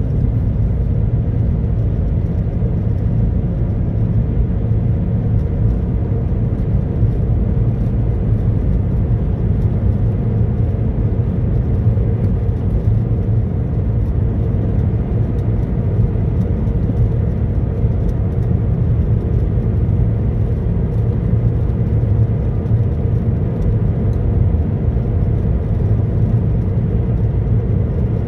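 A car's cabin while driving: a steady low drone of tyres on the road and engine.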